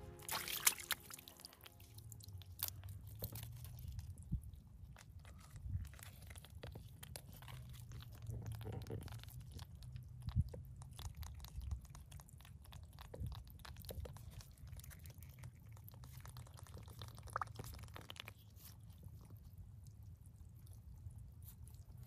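Hands handling a mud crab in shallow muddy water: faint wet squelches and small splashes with scattered clicks, the sharpest about ten seconds in, over a low steady rumble.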